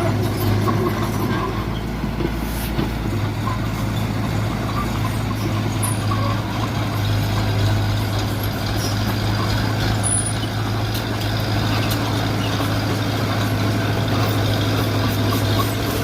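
Heavy diesel engine of earth-moving machinery running at a steady drone, with no pauses or revs.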